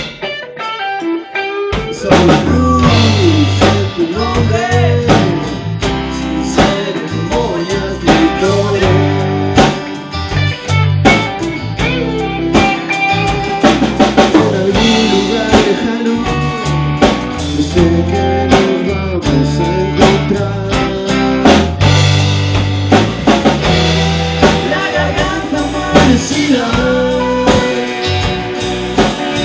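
Rock band playing: drums alone for about the first two seconds, then electric guitars, bass guitar and drum kit come in together and play on at full volume.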